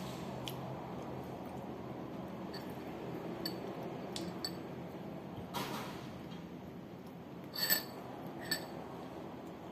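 Fingers picking rice out of a porcelain bowl: a few faint taps and a brief rustle, then two sharp clinks of china ringing briefly near the end.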